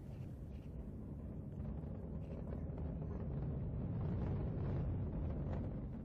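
GSLV Mark II rocket's launch rumble during ascent: a low, steady rumble that grows slowly louder, then eases off near the end.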